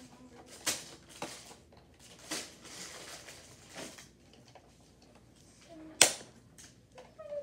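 Handling sounds at a table: packaging rustling and light clicks and taps, with one sharp, loud knock about six seconds in.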